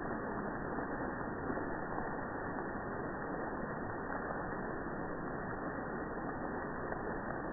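Heavy rain falling steadily: an even, continuous hiss of rain on the lawn, path and street.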